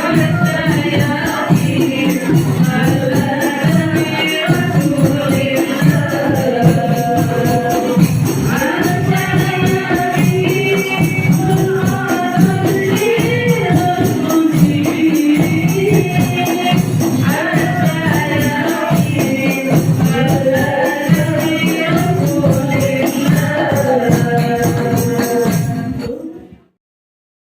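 Hadroh ensemble performing: voices singing together over rebana frame drums with jingles, played loud through a sound system. The music stops abruptly near the end.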